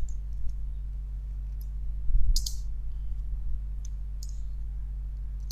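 Computer keyboard keys clicking a few times at an unhurried pace, with one louder keystroke about two seconds in, over a steady low electrical hum.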